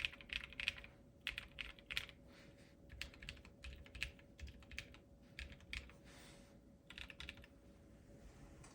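Wind Studio Wind.X custom mechanical keyboard with a POM plate, lubed Durock Sunflower tactile switches and PBT keycaps being typed on: keystrokes in quick clusters, stopping about seven and a half seconds in. A faint steady hum runs underneath.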